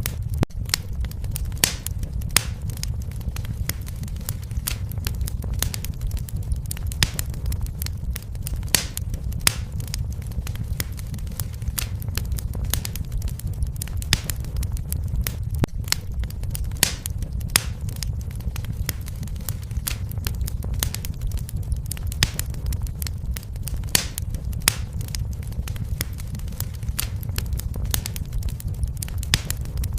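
Fire crackling in a fireplace: irregular sharp pops and snaps, several a second, over a steady low rumble of the flames.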